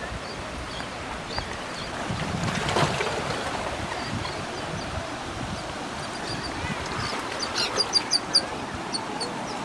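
Sea surf washing on the beach as a steady rush, swelling briefly about three seconds in. A quick run of short, high chirps comes near the end.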